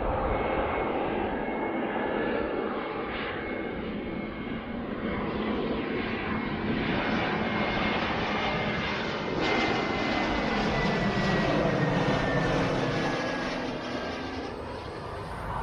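Jet airliner on landing approach passing overhead: a steady rushing engine noise with a high whine that falls slowly in pitch as it goes by, loudest about ten seconds in and fading near the end.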